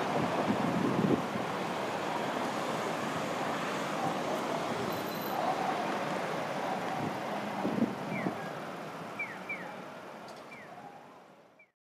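Steady city street traffic noise with wind on the microphone, fading out near the end. A few short, high falling chirps come in over the last few seconds.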